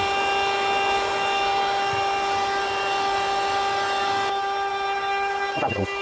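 Cherylon handheld car vacuum running steadily, its motor giving a constant high whine over the rush of air, as the hose nozzle is worked over carpet.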